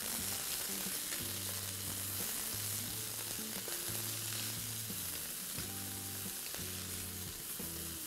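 Chopped carrots, beans and green peas sizzling in hot groundnut oil in a kadai, stirred with a wooden spatula, as a steady frying hiss. Quiet background music with low held notes plays underneath.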